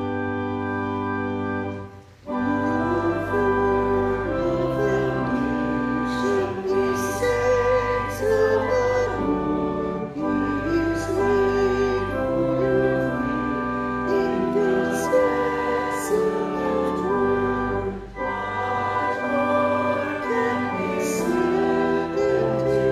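A congregation sings a hymn to organ accompaniment. The organ plays held chords alone, pauses briefly about two seconds in, and then the voices come in with it.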